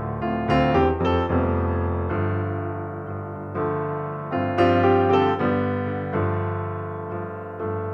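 Background piano music: single notes and chords that ring and fade, with quick runs of notes about half a second in and again around four and a half seconds in.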